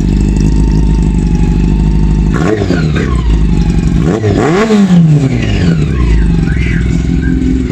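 1991 Honda CB400 inline-four engine idling through an aftermarket Akrapovic exhaust, then revved in throttle blips: a short one about two and a half seconds in and a bigger one a little past four seconds that rises and falls back to idle, with a small blip near the end.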